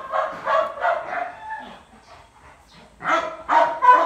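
A dog giving quick, high-pitched yelps and whines, about three a second. They stop about a second and a half in and start again near the end.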